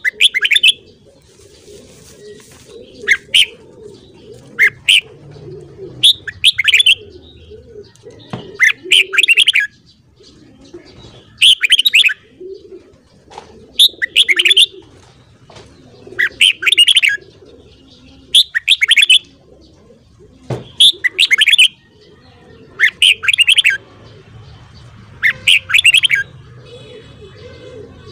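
Red-whiskered bulbul singing: short, loud, chattering song phrases repeated about every two seconds, over a softer low murmur.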